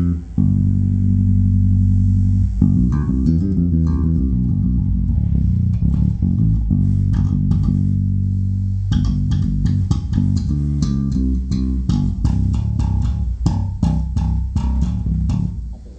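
Warwick Corvette Taranis five-string electric bass played amplified. A long held low note comes about half a second in, then a run of changing notes. From about nine seconds on it plays quicker notes with sharp, clicky attacks.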